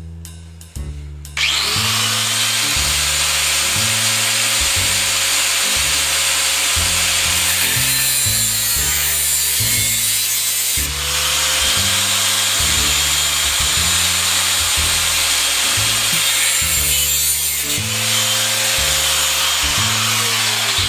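A power tool running steadily under load, starting about a second and a half in: a loud hiss with a faint motor whine that sags and picks up again twice. A background music track with a stepping bass line plays underneath.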